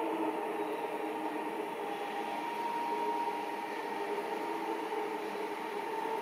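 Distant WDG4 diesel locomotive approaching, its two-stroke diesel engine a steady drone with a few held tones over a noisy background.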